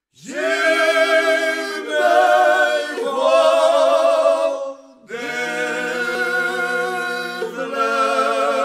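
A group of voices singing long held chords a cappella, in two phrases with a short break about five seconds in.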